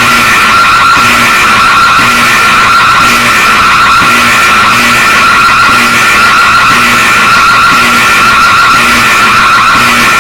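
A loud, harsh emergency alert alarm tone, held steady with a fast warble, and a faint low pulse repeating about once a second.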